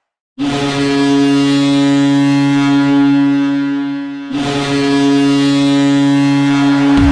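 Boston Bruins arena goal horn sounding a goal: two long, steady, low horn blasts, the first about four seconds and the second nearly three. Music starts right at the end.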